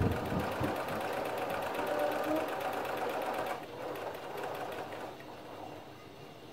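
Pfaff Creative computerized sewing machine stitching at a rapid, even pace, stopping about three and a half seconds in. A brief low bump sounds right at the start.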